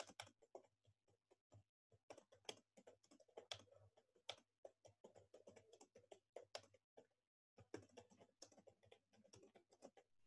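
Faint typing on a computer keyboard: irregular runs of keystrokes, broken by a short pause about seven seconds in.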